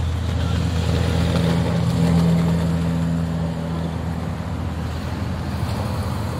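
A car engine running with a steady low hum. It swells about two seconds in and eases off after about four seconds.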